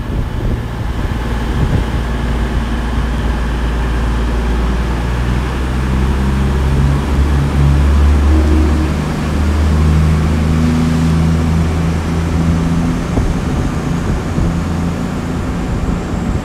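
CrossCountry Voyager diesel multiple unit pulling away from the platform, its underfloor diesel engines running up under acceleration. The engine note rises in steps from about six seconds in and eases off near the end.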